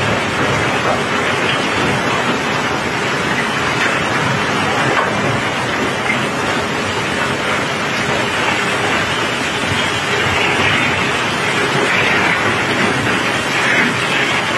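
Steady rain falling on the wet steel deck and ramp of a cobblestone barge, a dense even hiss with a rumble underneath.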